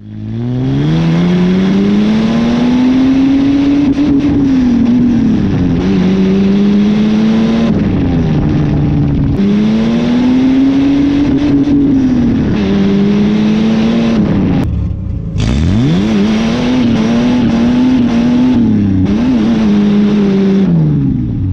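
Ford AU Falcon drift car's engine and exhaust accelerating on the road, the revs climbing and dropping at each gear change, over steady road noise. About 15 seconds in the revs briefly fall away and then pick up again.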